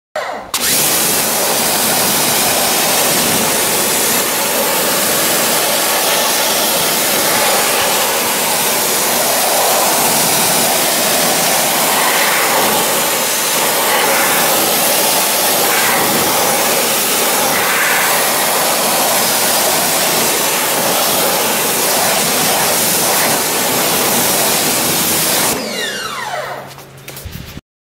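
Sun Joe SPX4000 electric pressure washer spraying a high-pressure jet of water onto a car's alloy wheel: a loud, steady hiss of spray over the running motor. Near the end the spray cuts off and the motor winds down with a brief falling whine.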